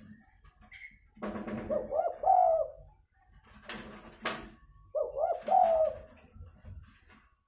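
Spotted dove (tekukur) giving its fighting coo, the call used to lure wild doves down: two cooing phrases, one a little after the start and one about five seconds in. Between them come two sharp knocks about half a second apart.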